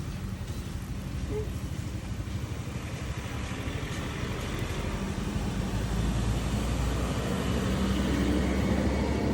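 A motor vehicle engine running with a steady low hum, growing louder in the second half, over general street noise.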